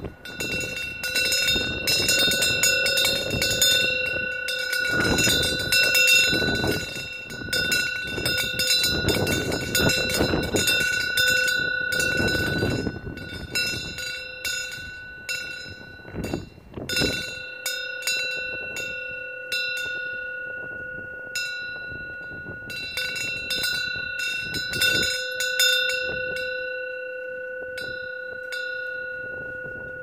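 Korean wind bell (pungyeong) struck over and over by its wind-swung clapper, each strike leaving a long, bright ring. Gusts of wind are heavy for the first half and ease after about 13 seconds, when the strikes come less often.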